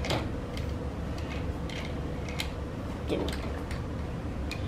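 Scattered light clicks and taps of small plastic anatomy-model pieces being handled against a clear plastic tray, over a steady low room hum.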